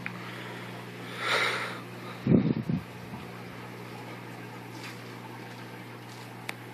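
Aquarium air pump humming steadily while the air stone's bubbles hiss up through the water. A brief rushing sound comes about a second in, then a few loud dull thumps just after two seconds, and a sharp click near the end.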